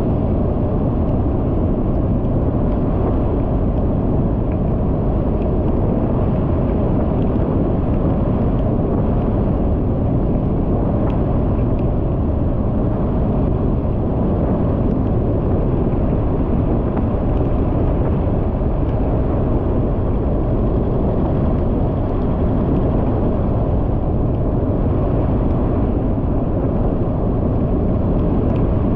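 Steady rumble of wind and road noise from a vehicle travelling at about 50 km/h, loud and unchanging, with no distinct engine note or other events.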